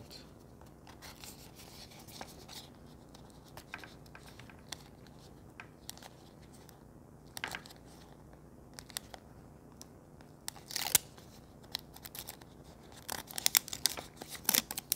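A screen protector's packaging being handled and opened: scattered short crinkles and clicks, the loudest about eleven seconds in, with a quick run of them near the end.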